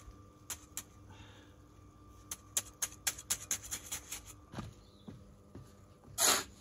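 Gloved hands working stones and timber in a concrete step form: a quick run of light clicks and taps, about five a second, for two seconds, then a single louder, short scraping noise near the end.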